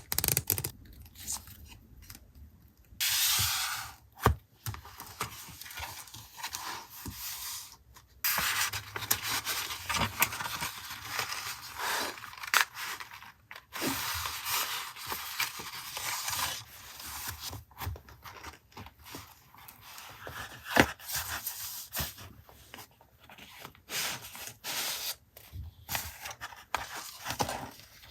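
Close-up paper handling: sheets rustling, being rubbed and scraped, with short sharp ticks scattered through it. The sound is sparse for the first few seconds and nearly continuous from about eight seconds in.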